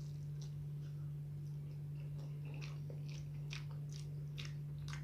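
Close-miked chewing of a meal of chilli eggplant and omelette: wet mouth clicks and smacks that come more often after about two seconds. A steady low hum runs underneath.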